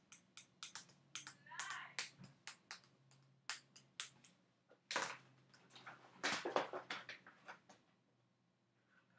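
Faint rustling of a paper sheet being handled, with scattered light clicks and taps, and two louder rustles about five seconds and six to seven seconds in.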